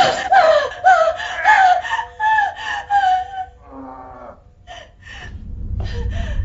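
A woman's high-pitched laugh, a run of short 'hi-hi' syllables that bend downward, about two to three a second, fading out after three or four seconds. It is the shrill ghost laugh typical of a horror soundtrack. A low rumbling drone swells up near the end.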